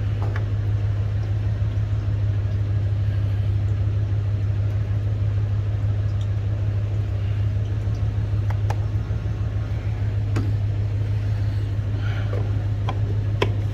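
A steady low engine hum, like a vehicle idling, with a few light clicks and knocks over it.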